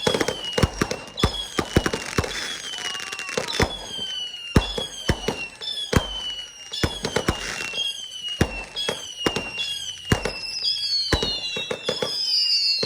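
Consumer fireworks going off in a rapid barrage: a steady string of sharp bangs and crackle, with whistling shells or rockets about once a second, each whistle falling in pitch.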